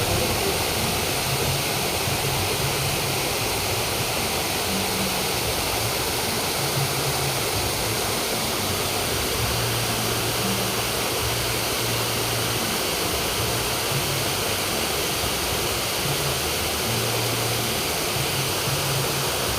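Steady rushing noise like running water, even throughout, with a faint low hum that comes and goes.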